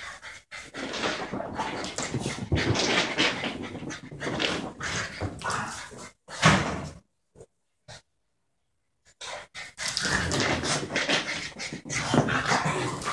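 A Border terrier and a French bulldog playing rough, making dog play noises in broken spells. There is a loud burst about six and a half seconds in, then about two seconds of silence before the noises start again.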